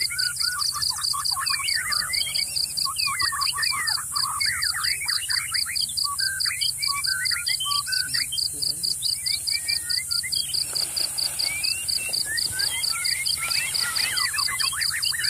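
Birds chirping in many quick, rising and falling calls over a high insect trill that pulses evenly several times a second, with a low steady hum underneath.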